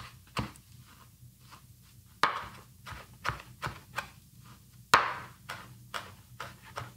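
Chef's knife chopping fresh herbs on a plastic cutting board: about fifteen irregular sharp knocks of the blade against the board, two or three a second, the loudest about two seconds in and again near five seconds.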